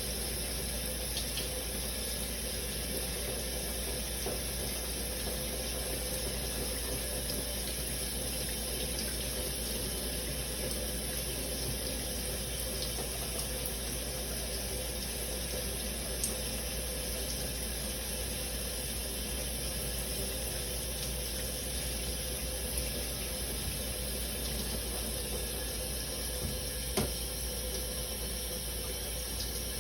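Shower running steadily, a constant spray of water, with a few brief ticks of drops striking, the sharpest about 27 seconds in.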